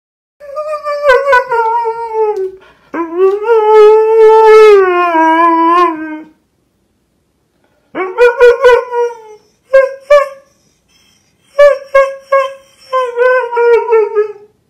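A pet animal howling: two long, drawn-out pitched howls, then after a short pause a string of shorter howls.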